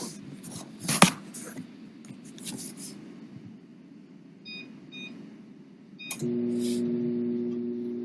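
A microwave oven being set and started: a sharp knock and some clatter, then three short keypad beeps, and about six seconds in the oven starts running with a steady hum. A phone is inside it.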